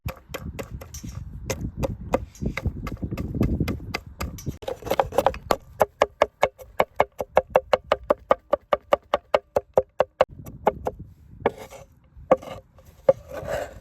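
A knife chopping rapidly on a cutting board, about five even strokes a second, for several seconds. Slower, irregular knocks come before and after.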